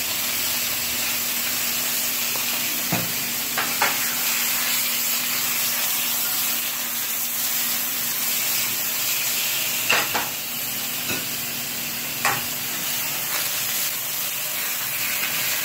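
Steak frying in butter in a nonstick pan, a steady sizzle, with a few sharp clicks of a metal utensil against the pan.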